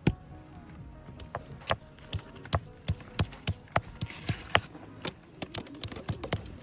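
A series of sharp knocks or taps, irregularly spaced, about two to three a second.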